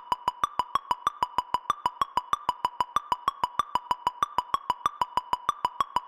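Electronic intro music: a fast, even synth ticking pattern, a little over four ticks a second, over a faint held tone, with no bass or drums yet.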